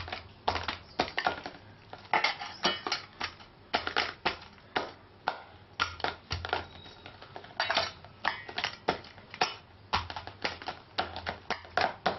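A round stone pounding oiled maida dough in a stainless-steel bowl: an uneven run of knocks, two or three a second, with the stone and dough knocking against the steel. Pounding with the stone works the dough soft and smooth quickly.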